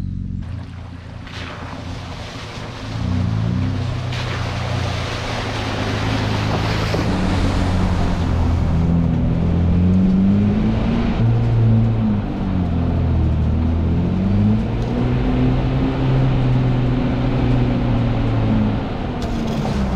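Toyota 80 series LandCruiser driving on a dirt track: the engine's drone rises and falls several times as it changes speed, over a steady rush of tyre and road noise.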